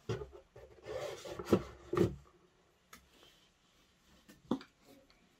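Cloth-bound hardback books handled on a tabletop: covers rubbing and sliding, with a few soft knocks in the first two seconds, then only faint light taps.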